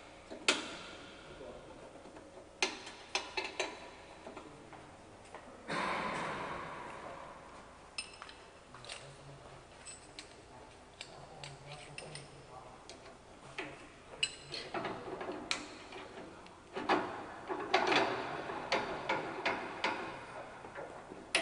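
Scattered metallic clicks, taps and knocks from hand-adjusting a 7-inch metal-cutting band saw's bolts and vise, with a short scraping slide about six seconds in and a busier run of clatter near the end.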